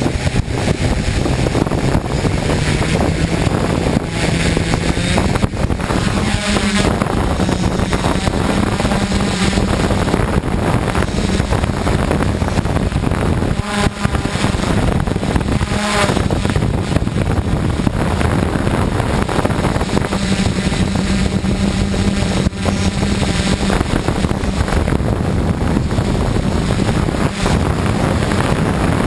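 DJI F550 hexcopter's six electric motors and 10-inch propellers running with a steady hum whose pitch steps up about five seconds in, under heavy wind buffeting on the microphone.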